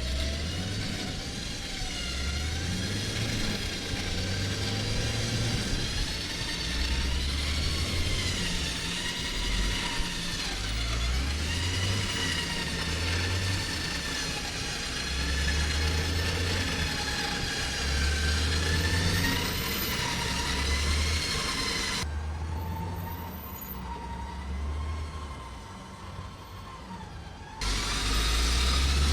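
SUV engine running under load, its revs rising and falling unevenly, as a vehicle bogged in wet ground is driven and pulled out. The sound changes abruptly about three-quarters of the way through and again near the end.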